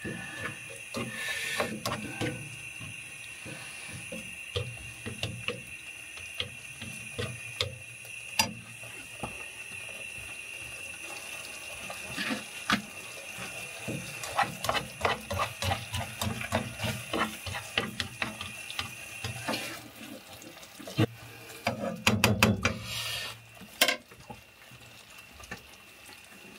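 A fork scraping and clicking against a non-stick frying pan as a creamy mushroom sauce is stirred, over a steady hiss that stops about three-quarters of the way through. A quick run of clicks comes near the end.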